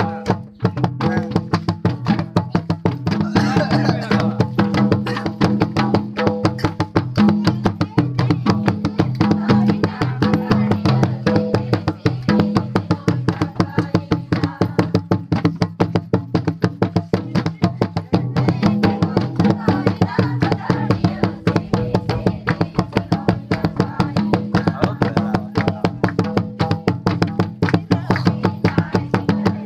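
Folk dance music led by a hand drum beaten in a fast, even rhythm, with a steady pitched drone underneath.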